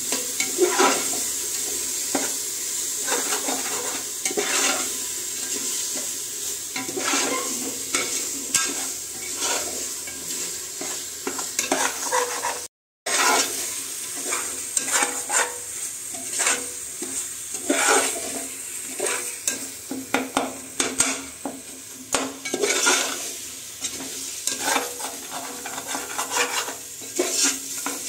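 A metal spoon stirring and scraping biryani masala frying in an aluminium pressure cooker, with a steady sizzle under repeated scrapes against the pot. The sound cuts out for a moment about halfway through.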